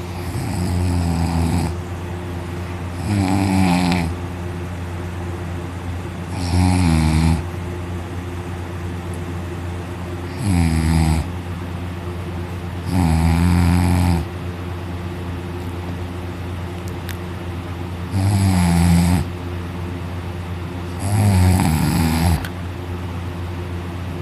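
A person snoring very loudly, open-mouthed while sleeping on their back: seven snores in a row, each about a second long and sliding slightly down in pitch, coming every three seconds or so. A steady hum runs underneath.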